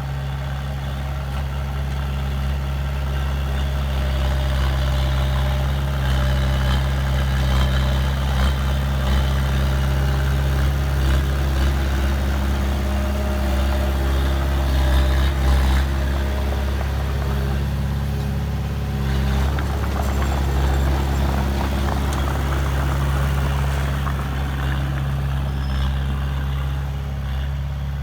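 Heavy diesel engine of an earthmoving machine running steadily with a deep hum, working a little harder through the middle and easing near the end.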